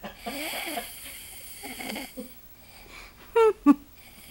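A person snoring: raspy, rattling breaths, then two short, loud snorts about three and a half seconds in.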